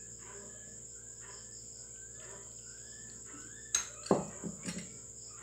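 Crickets chirring steadily in the background, with a few sharp clicks and knocks of kitchen utensils and pan handled about four seconds in.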